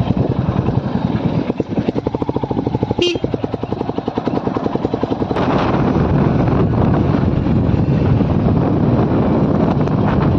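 Royal Enfield Classic 350's single-cylinder engine running under way, its even thumping beat clear for a few seconds. There is a brief click about three seconds in, and the sound turns louder, with a rushing noise, from about five seconds in as the bike picks up speed.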